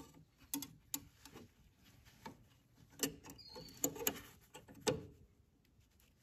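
Small, irregular metal clicks and taps of a DeWalt DW734 planer knife being set back onto the cutterhead's locating pins by hand.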